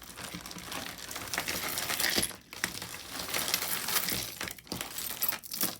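Costume jewelry clinking and rattling as handfuls of pieces are sorted and dropped together, a steady run of small metallic chinks with short pauses.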